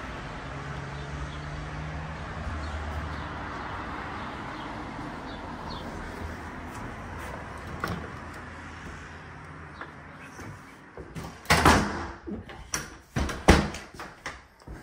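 Steady outdoor street ambience with a low vehicle hum in the first few seconds. About eleven seconds in comes an irregular run of loud knocks and thumps from a wooden door being handled and footsteps heading onto the stairs.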